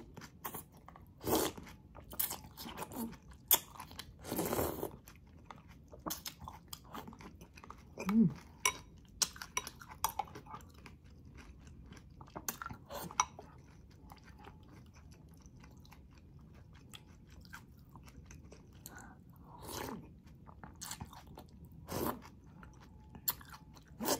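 Close-miked mouth sounds of eating: greens and broth sucked off a spoon, then wet chewing with lip smacks and occasional crunches, in irregular clicks and a few longer slurps.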